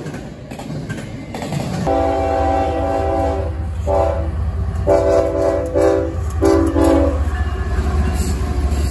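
Diesel freight locomotive's air horn sounding four blasts, long, short, long, short, for a grade crossing, over the locomotive's steady low engine rumble. Before it, for about the first two seconds, the rumble of a passing double-stack train's cars.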